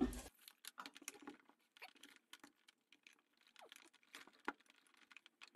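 Faint, scattered light clicks and rustles of small objects being handled and set down on a desk.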